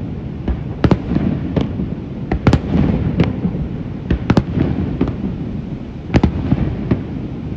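Aerial fireworks shells bursting across the water: about nine sharp bangs at irregular spacing, some in quick pairs, over a steady low rumble.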